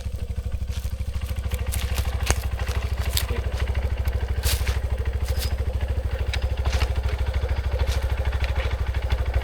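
Small engine idling steadily, a fast even low throb of about eight or nine beats a second, with scattered light clicks and clatter over it.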